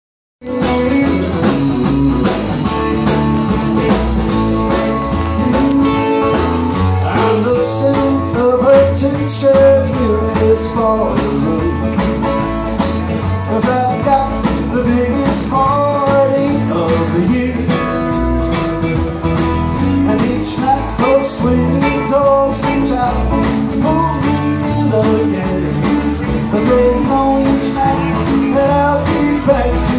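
Live country band playing a honky-tonk song: electric and acoustic guitars over upright bass and drums, with a steady beat. The music starts abruptly about half a second in.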